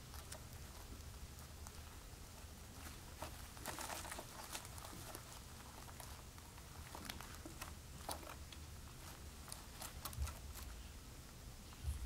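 Swallows stirring at a nest: faint rustling and scattered soft clicks over a low steady hum, with a brief louder patch of rustling about four seconds in.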